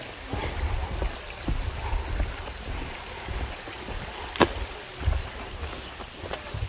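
Uneven low rumble on the microphone, with scattered clicks and knocks; the sharpest knock comes about four and a half seconds in.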